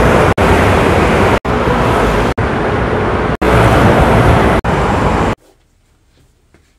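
Loud street traffic noise from heavy motor-scooter and car traffic, in several short clips that each cut off abruptly about every second. About five seconds in, it drops to a faint indoor hush.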